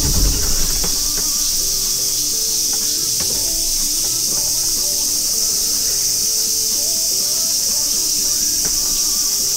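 Steady, high-pitched drone of a summer insect chorus from the wooded bank, unchanging throughout, with a brief low knock right at the start.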